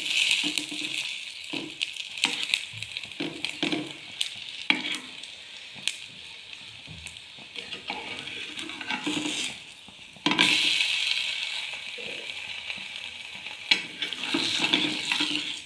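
Egg-soaked bread toast sizzling in hot oil in an aluminium frying pan, with a spatula clicking and scraping against the pan now and then. The sizzle drops off a little before ten seconds in, then comes back louder just after.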